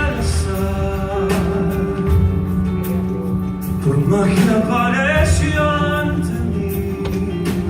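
A man singing a slow song live, with instrumental accompaniment underneath; about halfway through he holds a note with vibrato.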